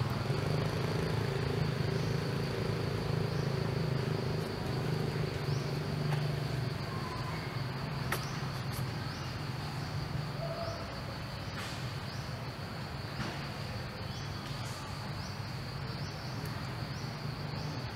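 Steady high-pitched insect chirring, with short chirps repeating about once a second, over a low steady hum.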